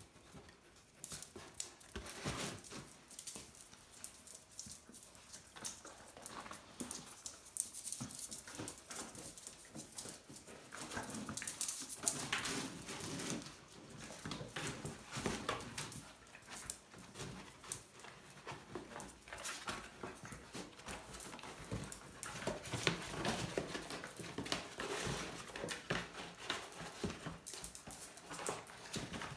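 Puppies at rough play, whining and yipping, over the scraping and rustling of a cardboard box that they climb on and chew.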